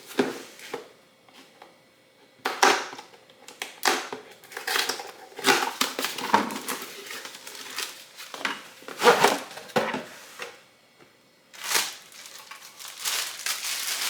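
Tool packaging being torn open and handled: cardboard and plastic crinkling and crushing in about ten irregular bursts.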